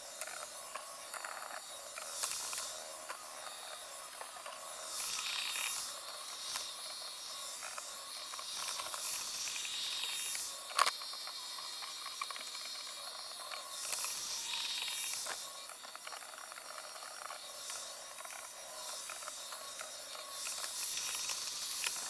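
Roomba 870 robot vacuum running: a hiss from its vacuum motor and brushes that swells and fades as it moves about, with light mechanical rattling and one sharp knock about eleven seconds in.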